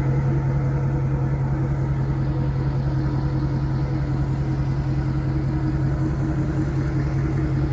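An engine running steadily at constant speed.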